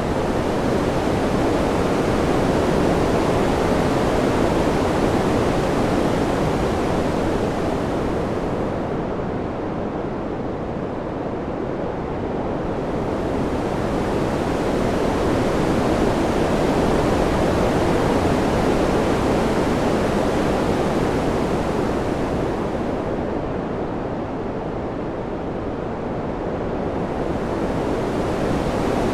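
Wind ambience: a steady rushing noise that slowly swells and eases, its hiss thinning twice, roughly every fourteen seconds.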